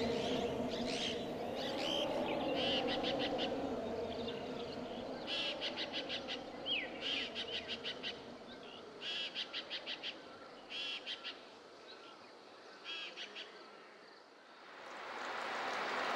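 Birds calling: high chirps, then short rapid trills repeated every second or two. A low drone underneath fades out in the first few seconds. Near the end a steady hiss swells in.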